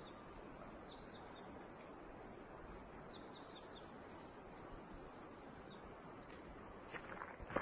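Quiet forest ambience: a steady faint hiss with short, high bird chirps every second or two. Near the end come a few footsteps on dry leaf litter.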